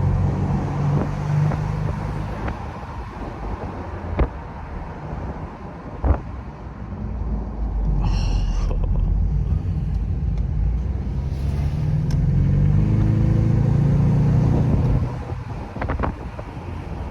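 Ford Mustang engine pulling on a mountain drive: a steady low rumble, then a few seconds of acceleration with the engine note climbing, easing off suddenly near the end.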